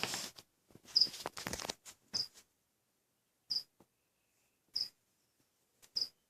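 Short high-pitched chirps repeating evenly, about one every second and a quarter, from a small animal. Rustling handling noise during the first two seconds.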